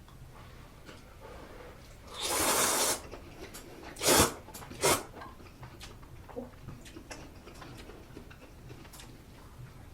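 A person's breath and mouth noises while eating spicy stew: a long breathy rush of air about two seconds in, then two short, sharp breath sounds a little over a second later. Faint clicks of chewing and utensils run underneath.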